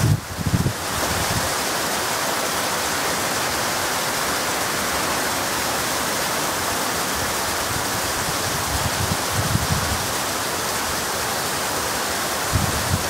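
Heavy rain pouring steadily, a dense even hiss, with a few brief low rumbles near the start, about nine seconds in and near the end.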